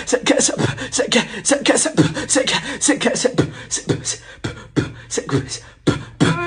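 Fast percussive music of sharp, quick hits several times a second over deep thumps that drop in pitch, in a beatbox-like rhythm.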